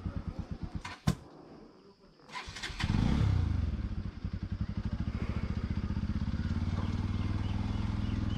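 Motorcycle engine idling with a regular pulse, cutting out with a sharp click about a second in. After a short pause it starts up again a little under three seconds in, loud at first, then settles back into a steady idle.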